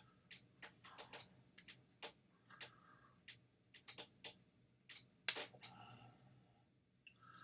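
Irregular small clicks and ticks of a hand tool working at the hard plastic casing of a rechargeable battery pack, prying at its pieces. One sharper click comes about five seconds in.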